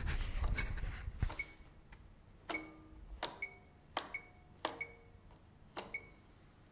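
Control knob of an Electrolux W455H washing machine being turned through its wash programmes: each step gives a click and a short high beep, about seven in all, roughly a second apart.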